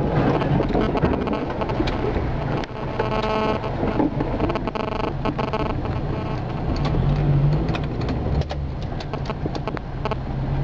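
A 4x4's engine running as it drives over a rough, unsurfaced lane, heard from inside the cab, with the body knocking and rattling over the bumps. A brief held tone with overtones sounds about three seconds in.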